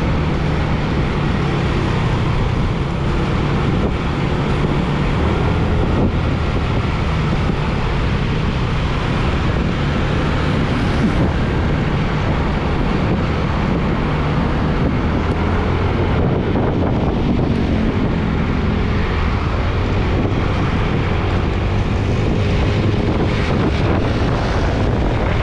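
A vehicle engine running steadily, with wind noise on the microphone.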